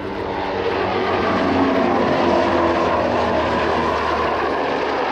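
An NH90 military helicopter flying a low display pass. Its rotor and twin turbine engines make a steady noise that grows a little louder during the first second or two.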